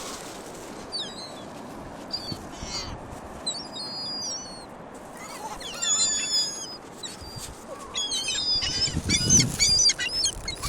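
Gulls calling overhead and around: many short, high-pitched squawks in bursts, thickest in the last few seconds, over a steady background rush.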